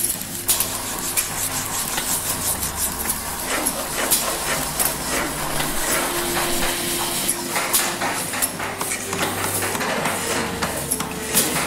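Recorded workshop soundscape: dense, irregular tapping and clicking of hand tools on hard material, over a low steady hum, with a few faint held tones.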